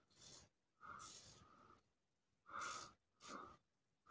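Faint, scratchy strokes of a Merkur 34G HD safety razor with a Wilkinson Sword blade cutting through lathered stubble on the neck, several short strokes in a row.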